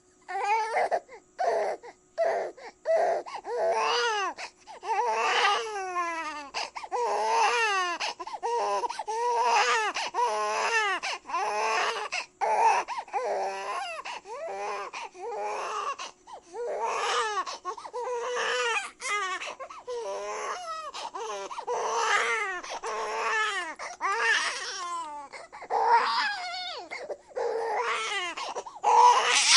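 A baby crying: a string of wails, each a second or two long, with short catches of breath between them.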